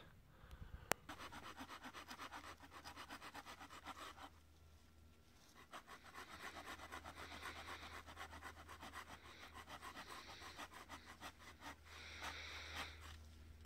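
A small hand saw cutting through a dead branch with quick back-and-forth strokes, stopping briefly about four seconds in and then carrying on.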